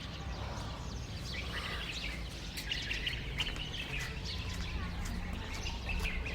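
Small birds chirping repeatedly over a steady low background hum.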